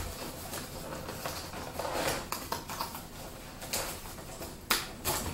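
Cardboard product box being opened by hand: irregular rustling and crinkling with scattered small clicks, and a couple of sharper knocks near the end.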